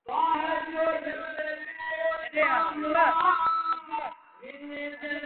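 A man's voice singing a naat, a devotional Urdu chant in praise of the Prophet, with held notes and ornamented turns. It breaks off briefly about four seconds in.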